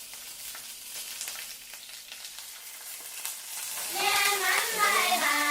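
Food sizzling and crackling in a hot pan, with a light stirring. About four seconds in, a louder melody with held, gliding notes comes in over it.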